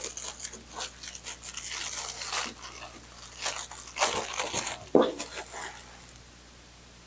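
Crinkly plastic packaging of a printed banner being handled and turned over in the hands, in irregular rustles that stop about six seconds in.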